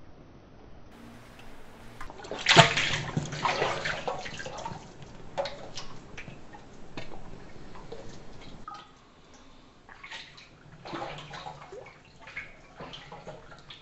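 White clay slip sloshing and splashing in a slip-coating tool as plates are pressed onto it and lifted off, with slip dripping and streaming back into the tool's steel bowl. The loudest splash comes about two and a half seconds in, and another round comes near the end.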